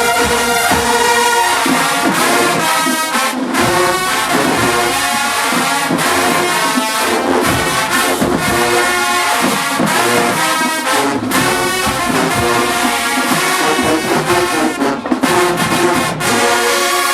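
Marching band brass section playing loudly in full ensemble, trombones and trumpets prominent, with sharp drum hits marking the beat.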